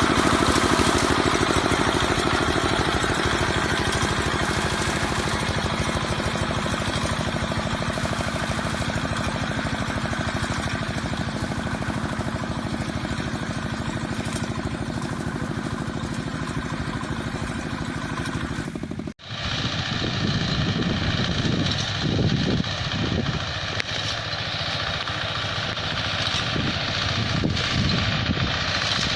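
Reaper binder's small engine running steadily under load as the machine cuts and binds crop. About two-thirds of the way through the sound cuts off abruptly and another recording of the machine at work takes over, its engine note less even.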